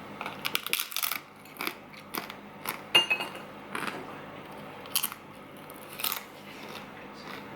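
Crunching of a hard taco shell: a run of irregular sharp crackles and snaps, the loudest about three seconds in.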